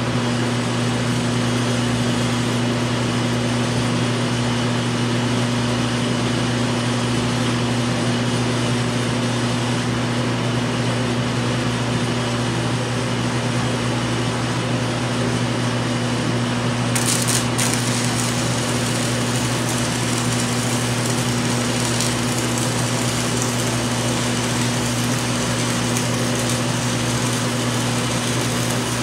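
Shop ventilation fan running with a steady hum. About two-thirds of the way through, a DC stick-welding arc is struck with a 3/32-inch 7014 rod at about 60 amps on a Forney Easy Weld 180 ST, and it keeps burning, adding a high hiss on top.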